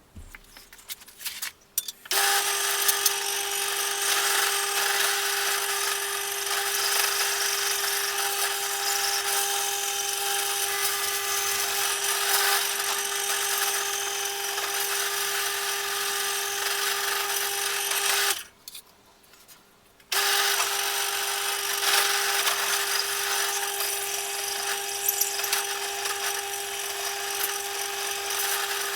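Electric drill running steadily with a constant motor whine while drilling the switch holes through a painted metal switch plate. After a few clicks at the start, it runs, stops about two-thirds of the way through, and starts again about two seconds later.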